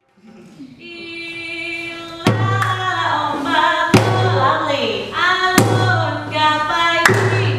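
Music for the Saman dance: a sung melody comes in out of silence, and deep beats join in from about two seconds in, landing about every one and a half seconds.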